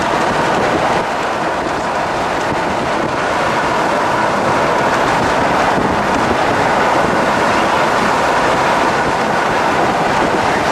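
Loud, steady rushing noise of wind on the microphone mixed with vehicle road noise, with no break or change.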